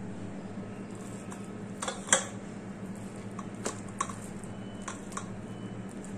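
Ripe palmyra palm fruit being rubbed by hand against a flat hand grater in a steel bowl to press out its pulp: a wet rubbing with scattered clicks of the grater against the bowl, the loudest about two seconds in. A steady low hum runs underneath.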